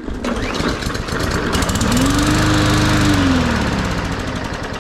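Push lawn mower's small single-cylinder engine catching on the pull after priming, revving up, running for a moment, then slowing and dying.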